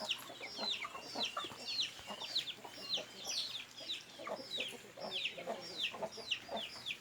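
Many small birds chirping together: a continuous stream of short, high chirps, each falling in pitch, several a second and overlapping.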